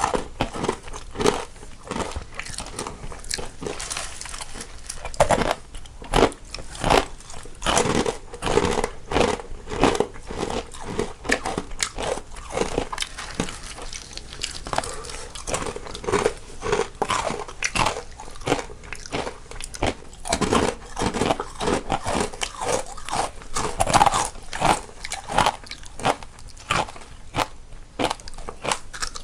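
Two people biting and chewing crisp snacks close to the microphone, one in the left channel and one in the right, in a steady, irregular run of crunches.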